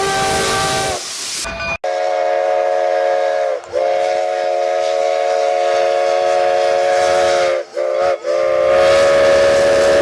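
Steam locomotive chime whistle blowing several tones at once over a hiss of steam. A first blast cuts off about a second in, then a long blast follows with brief breaks near four and eight seconds.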